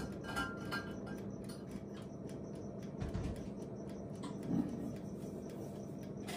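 Breville countertop oven running while it bakes, a steady low hum, with a few light clinks in the first second.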